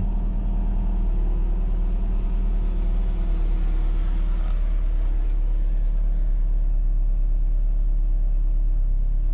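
Lotus Esprit's twin-turbo V8 engine running steadily as the car drives, heard from inside the cabin.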